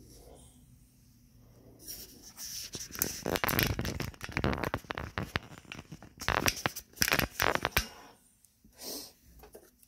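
Handling noise: fingers rubbing and scraping on the camera as it is picked up and repositioned, a loud crackly scraping with many sharp clicks that starts about two seconds in and dies away near the end.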